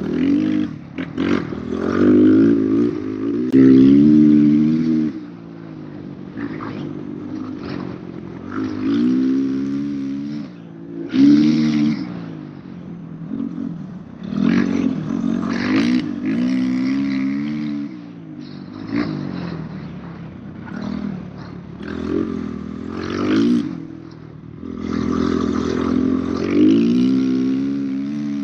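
Dirt bike engine revving up through the gears and backing off, several times over, as the bike accelerates along a dirt trail, with bursts of rushing noise over the microphone.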